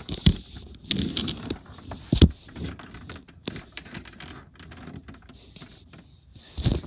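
Handling noise: rustling and several sharp knocks and clicks, the loudest about two seconds in, then quieter rustling.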